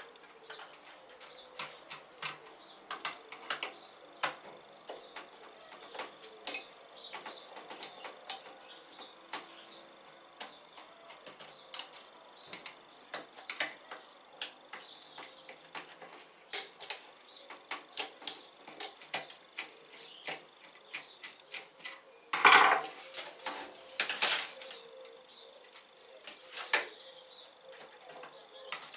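Small, irregular clicks and taps of a screwdriver and plastic parts as a small battery-powered insect zapper is unscrewed and taken apart. Two louder scraping rattles come about two-thirds of the way through.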